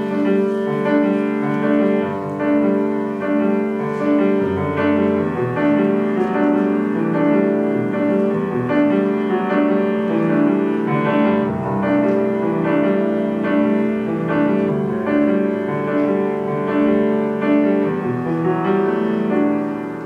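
Solo piano playing the introduction to a slow musical-theatre song, a steady pattern of repeated chords.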